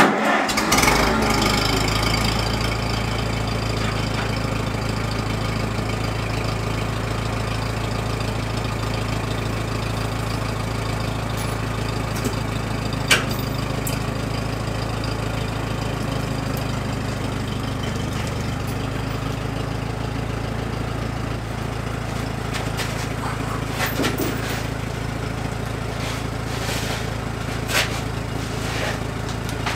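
Tractor engine idling steadily, with a few sharp clicks and knocks over it.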